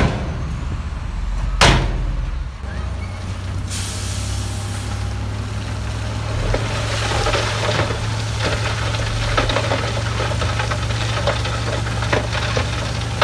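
Heavy dump truck engine running steadily while its hydraulic tipper bed raises, with a short sharp burst of noise about a second and a half in. From about four seconds in, a steady gritty rush full of small crackles comes in as the load slides out of the tipping bed.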